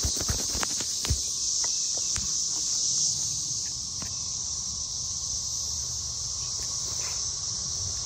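Steady high-pitched drone of a chorus of cicadas. A few sharp clicks and knocks sound in the first second or so.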